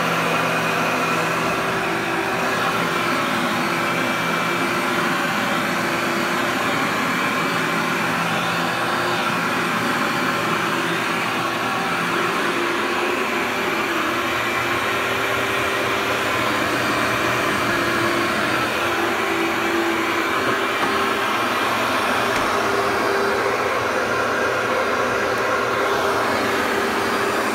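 Oxy-Dry Workhorse upright vacuum cleaner running steadily as it is pushed over carpet, pulling up dust and dried skin.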